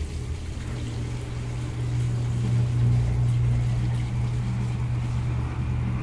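Drain pump of a GE TD1140PB top-load washing machine running with a steady low hum that swells a little midway, pumping the water out of the tub before the spin stage.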